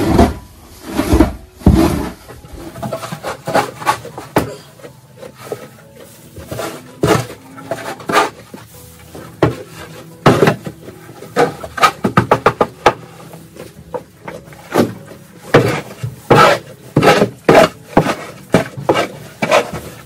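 A shovel scraping and knocking on a barn stall floor as straw bedding and muck are scooped up, in many irregular strokes.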